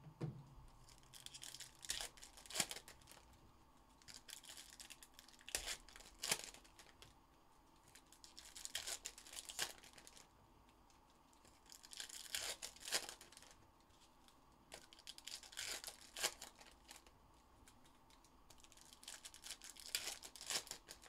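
Trading-card pack wrappers being torn open and crinkled by hand, in short rustling bursts every few seconds.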